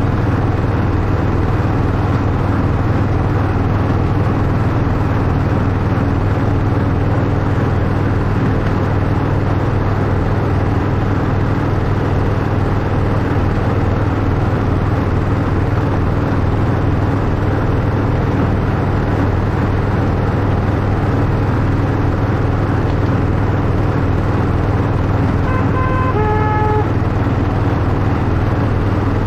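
Miniature Class 91 replica locomotive running steadily along a miniature railway, a continuous low hum with track noise. Near the end a brief two-note horn sounds, a higher note followed by a lower one.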